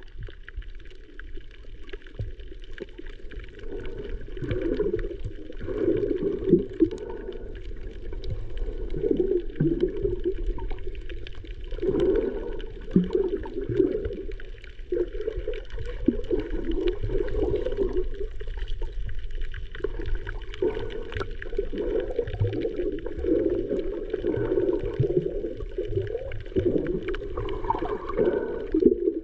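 Muffled water sloshing and gurgling heard underwater, with a steady low rumble beneath.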